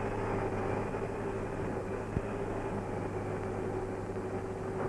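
Steady hiss and hum of an old film soundtrack, with a single click about two seconds in.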